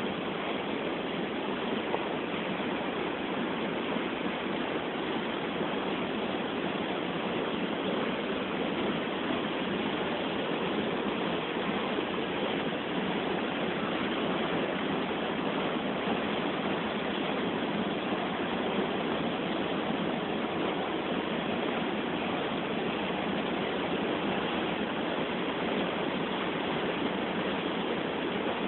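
River water pouring over the crest of a low causeway weir and churning below it: a steady, unbroken rush of falling water.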